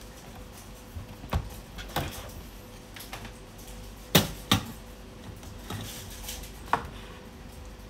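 Scattered knocks and clicks of a bench meter and a light-bulb holder being handled and set down on a workbench, the two sharpest about four seconds in, half a second apart, over a faint steady hum.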